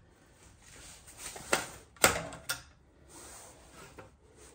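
An exhaust clamp being handled and fitted over the exhaust pipe: three sharp metallic clicks and knocks, the loudest about two seconds in, with quieter handling noise between.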